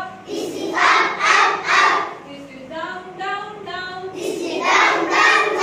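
A class of young children chanting words loudly in unison, taking turns with a single woman's voice that leads them in a call-and-response pattern.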